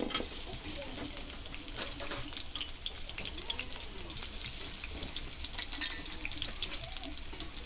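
Chopped garlic sizzling and crackling in hot oil in a kadai, stirred with a spatula. The sizzle starts as the garlic goes in and grows livelier about halfway through.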